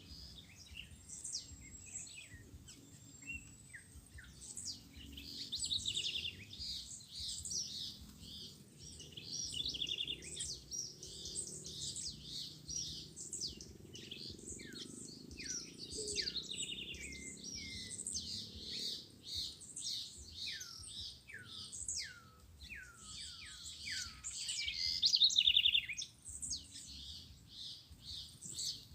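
Many small birds chirping and calling at once in a dense, overlapping chatter, with a run of quick downward-sliding notes in the middle and the loudest burst of chirping near the end.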